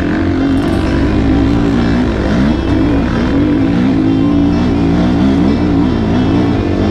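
Enduro motorcycle engine revving, its pitch rising and falling again and again as the throttle is worked, with a brief drop about two and a half seconds in.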